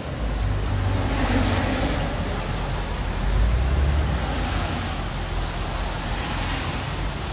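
Traffic on a rain-wet street: tyres hissing on the wet road over a steady low rumble, the hiss swelling about a second in and again near the end as cars pass.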